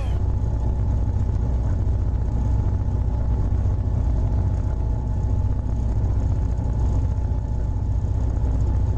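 Diesel locomotive engine running with a steady, deep rumble and a few faint steady tones above it.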